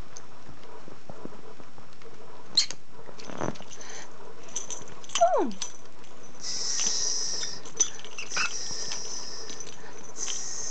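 Rosy-faced lovebird chattering in harsh, high-pitched bursts, loudest past the middle and again near the end, with a falling squeak about halfway and a few sharp clicks and taps as it bites at a toy and a pair of wire-framed glasses.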